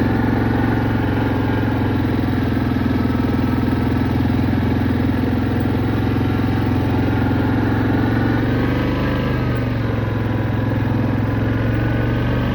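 An engine running steadily at a constant speed, its pitch swelling briefly and settling back about nine to ten seconds in.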